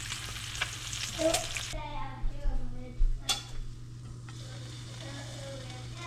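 Food sizzling and frying, a dense hiss that cuts off abruptly under two seconds in. After that come a steady low hum, faint voices and a single sharp click.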